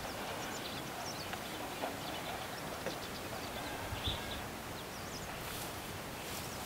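Quiet outdoor ambience: a steady faint hiss with scattered short bird chirps and a few soft knocks.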